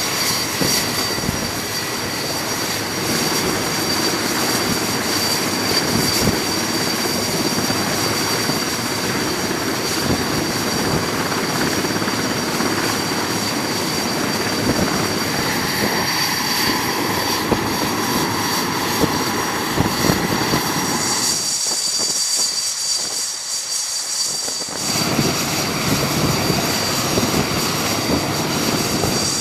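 Aircraft carrier flight deck noise: jet engines running, with a steady high whine over a dense roar. The low rumble drops away for a few seconds near the end, leaving a thinner hiss.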